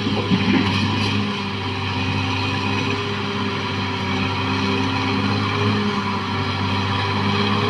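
Caterpillar D6R XL bulldozer's diesel engine running steadily under work, with a few short knocks in the first second.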